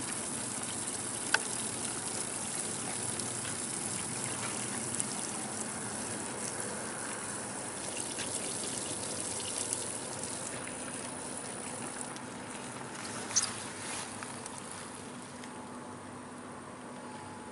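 Horse urinating onto grass: a steady splashing, trickling stream that slowly tapers off near the end. Two sharp clicks are heard, one about a second in and one, the loudest moment, near the end.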